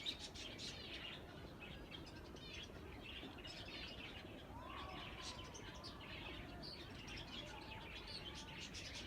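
Many small birds chirping and twittering at once, short overlapping high calls with no pause, with a few lower, gliding calls mixed in.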